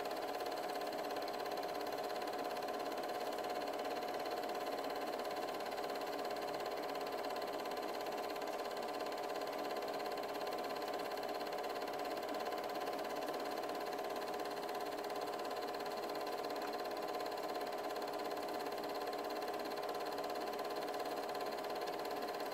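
Steady, unchanging machine hum over hiss, typical of a film projector motor running while a silent 8mm home movie is played.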